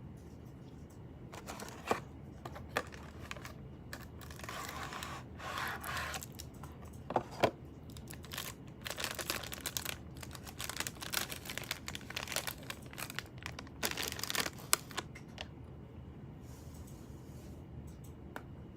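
Irregular rustling and crinkling with scattered sharp clicks and knocks, as of things being handled, dying away a few seconds before the end.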